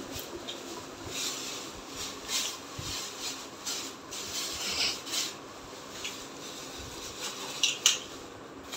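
Soft rustling and rubbing of cloth being handled: an irregular scatter of short scuffs, with a couple of sharper ticks near the end.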